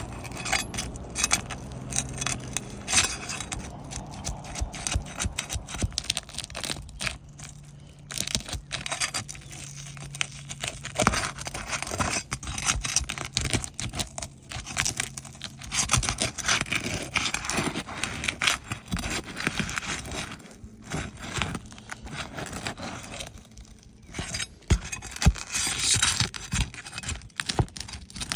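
Asphalt roof shingles being pried up and worked loose by hand: repeated scraping, crackling and tearing with many small clicks and knocks as the old shingles and their nails are lifted.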